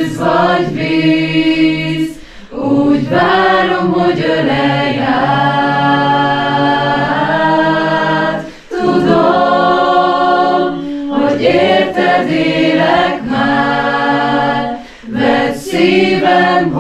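A small mixed group singing a Hungarian worship song a cappella in a stone chapel, holding long notes with brief breaks between phrases.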